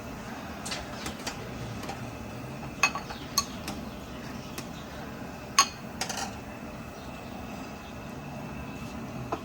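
Metal utensils clinking against dishes a few times, with sharp ringing clinks about three and three and a half seconds in and the loudest about five and a half seconds in, over a steady background din.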